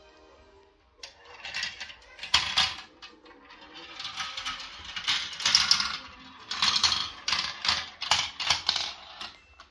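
Marbles rolling and clattering down a plastic marble run, a busy rattle of clicks that starts about a second in and comes in uneven bursts as they drop through the tubes and along the tracks.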